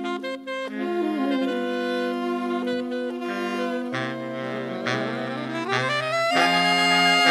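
Saxophone ensemble with a clarinet playing an instrumental passage of a tango ballad in held chords; low bass notes join about four seconds in and the playing grows a little louder near the end.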